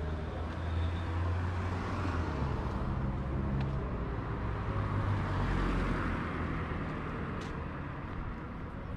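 Road traffic: vehicle engines running, with the noise swelling as a vehicle passes close about five seconds in.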